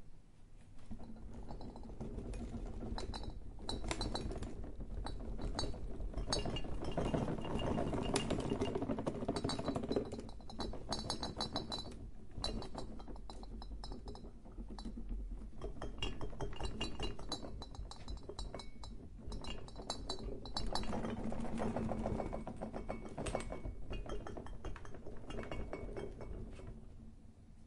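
Glassware being shaken and rattled together: a continuous, rapid clinking and chinking of glasses knocking against each other, rising and falling in intensity in waves, loudest about a third of the way in and again near three quarters.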